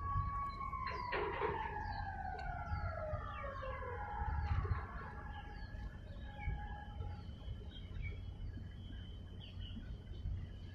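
A siren-like steady tone that begins sliding down in pitch about half a second in and fades out after about four seconds, with small birds chirping throughout over a low rumble.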